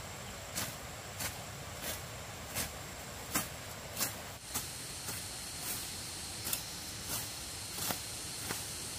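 Repeated short strokes at an even pace, about three every two seconds, like steady manual work such as chopping, hoeing or sweeping, over a faint steady high-pitched hum. A second, lower hum joins about halfway through.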